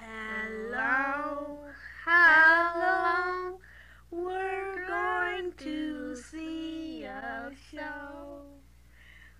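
A young voice singing a tune alone, in short phrases with held, wavering notes and brief gaps between them, over a steady low hum.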